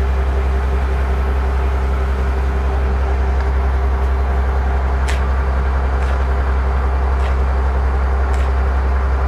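Fishing boat's engine running with a steady low drone and hum. A few faint ticks of a knife against the wooden cutting board come through about halfway in and near the end.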